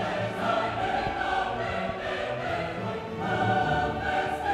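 Background music of voices singing long held notes together, changing pitch about once a second.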